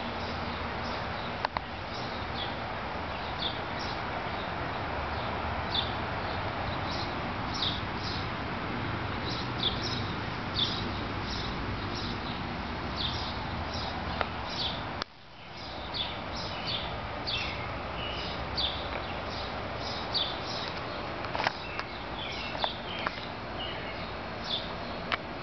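Small birds chirping over and over, short high falling chirps, over a steady hiss of outdoor background noise.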